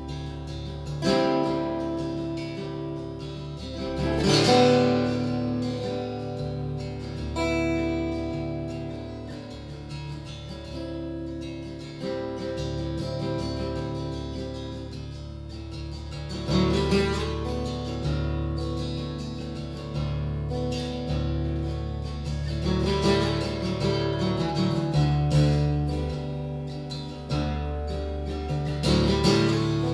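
Steel-string acoustic guitar played solo: chords and picked notes left to ring, with a harder strum every few seconds.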